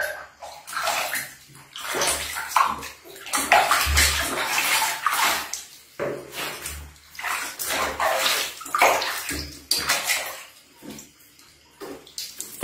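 Water splashing and sloshing in a plastic basin as baby monkeys are washed by hand, coming and going unevenly.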